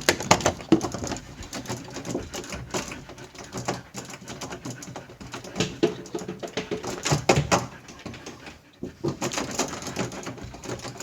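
Irregular clicks, knocks and rattles at a door, with no steady rhythm.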